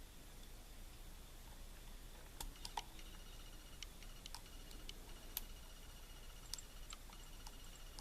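Faint, irregular clicks of a metal lock pick working the pin stacks of an Arrow key-in-knob cylinder during single-pin picking, mostly from a couple of seconds in.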